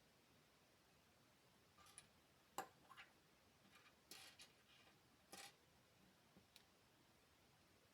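Small plastic LEGO pieces being handled: a scatter of faint clicks and short rustles, the sharpest about two and a half seconds in, then one last light click.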